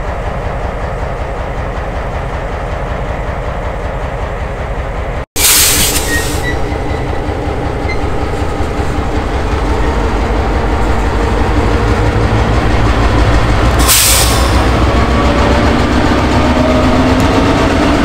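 CSX diesel locomotive 2039 passing close by at low speed, its engine running steadily over the sound of wheels on rail. The sound drops out for an instant about five seconds in, there are two short bursts of hiss, and faint tones slowly rise in pitch in the second half.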